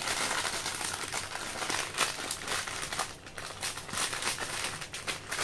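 Shiny foil snack packets crinkling and rustling as they are handled, with irregular crackles throughout; one packet is cut open with scissors in the second half.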